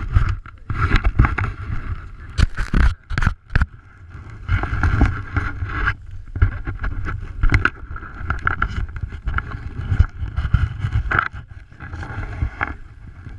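Skis scraping and hissing over snow, with wind buffeting the camera microphone and a few sharp knocks about three seconds in.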